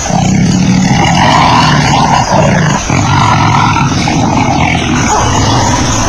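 Lion growling: a long, low, rumbling growl with short breaks about two and three seconds in.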